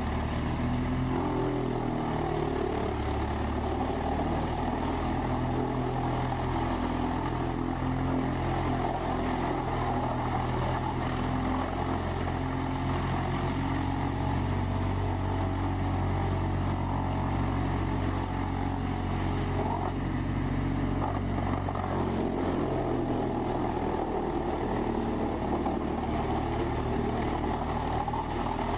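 Large whole-tree chipper running steadily under load while trees are fed into it, a deep continuous diesel engine drone with the rush of wood being chipped over it.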